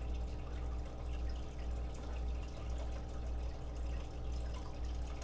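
Steady low hum with a faint even hiss: background noise on the mic.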